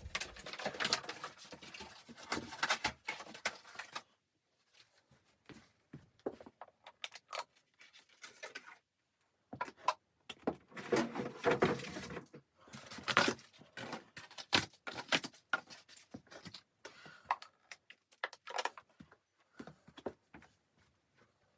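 Irregular rustling, clicking and knocking, as of gear being handled, in uneven bursts with short quiet gaps.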